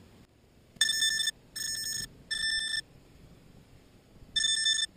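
Electronic beeper on a downed FPV racing quadcopter sounding its alarm: three high-pitched beeps of about half a second each, a pause, then the next group starting near the end.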